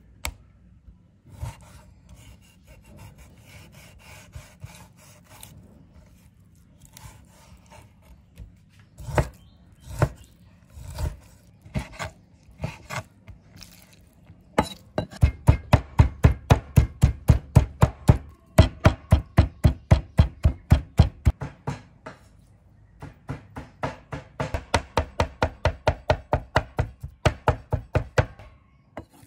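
Meat cleaver cutting pork on a bamboo cutting board: quiet slicing at first, then a few separate chops, then fast, steady chopping at about four to five blows a second as the pork is minced, with a short break about two-thirds of the way through.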